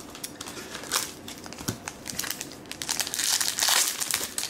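Foil-lined wrapper of a Topps baseball card pack being torn open and crinkled by hand, in scattered crackles that grow denser and louder about three seconds in.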